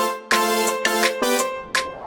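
Music: a pitched chord on a keyboard-like instrument struck over and over, about three times a second.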